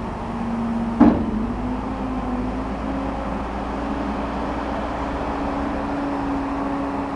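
Diesel engine of a telehandler running steadily, with a single loud clunk about a second in, after which the engine note rises slightly and holds.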